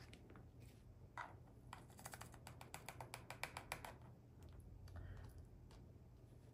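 Faint, quick run of light clicks from small plastic pieces being handled: resin diamond-painting drills and their little storage containers. The clicks are thickest for about two seconds after the first second.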